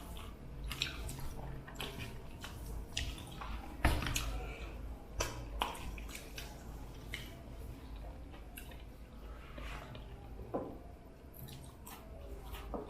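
Eating sounds: irregular wet clicks, squishes and smacks of rice and curry being mixed by hand and chewed, with one sharper click about four seconds in.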